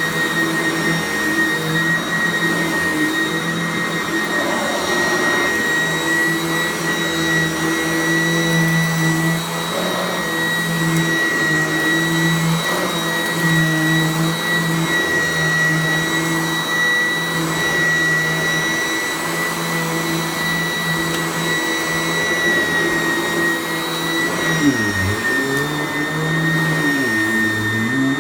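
Sanitaire SC888K commercial upright vacuum cleaner running steadily with a high, even motor whine. Near the end its lower hum dips and wavers twice, briefly.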